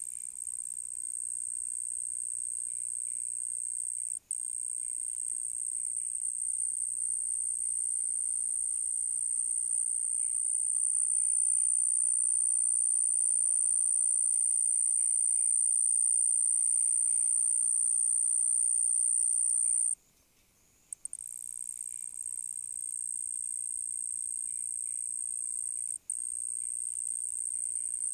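Collared ground cricket singing: a continuous high-pitched trill, broken by a few short pauses.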